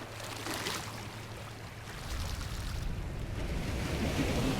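Seawater splashing and lapping, with a brief splash about half a second in and a low rumble building from about two seconds in.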